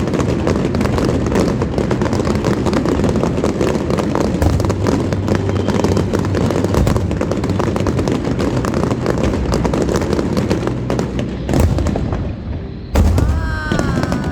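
Aerial fireworks going off in a dense barrage: rapid crackling and popping over deep booms, with a single loud bang near the end.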